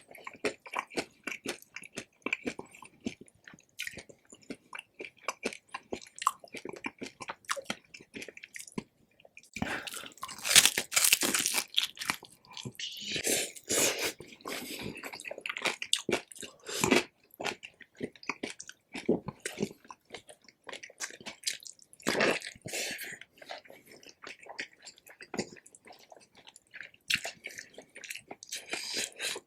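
Close-miked chewing of crispy lechon pork belly: steady wet chewing clicks, broken by loud crunches of crackling skin from about ten seconds in and again a few times later.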